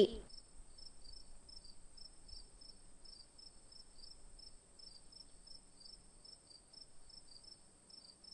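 Faint chirping of crickets: short high chirps repeating about three to four times a second over a steady high whine, as a forest ambience.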